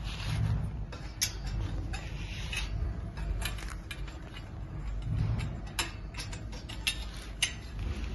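Gold-plated iron frame tubes being handled and fitted together: scattered, irregular light metal clicks and taps over a low handling rumble.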